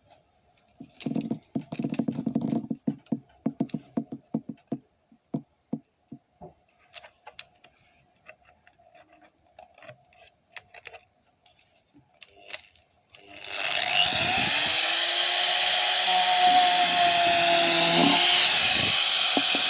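A run of scattered clicks and knocks, then about 13 seconds in an angle grinder fitted with a sandpaper disc starts, spins up and runs steadily with a loud whine over a hissing noise.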